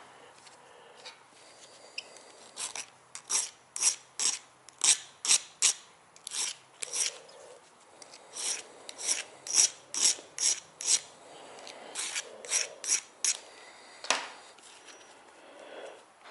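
A hand file scraping along the edge of a metal RC boat propeller blade to sharpen it, in quick back-and-forth strokes about two or three a second, in runs with short pauses and one last stroke near the end.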